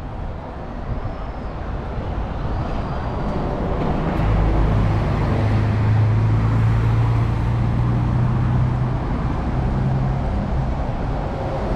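Articulated city bus driving past close by: its engine hum swells about four seconds in and stays loud for several seconds, over general street traffic noise.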